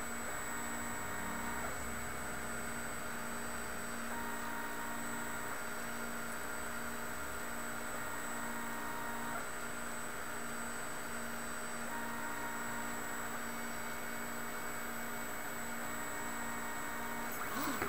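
MendelMax 1.5 3D printer's stepper motors running, whining at steady pitches that switch every few seconds as the axes move, with a brief quick sweep near the end.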